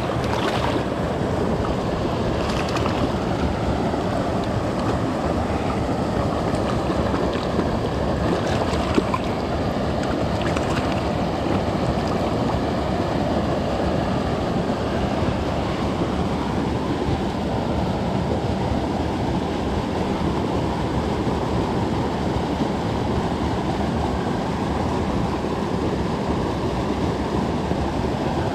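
Shallow creek water running steadily over the stream bed. A few short splashes in the first ten seconds come from a trout being handled in the water.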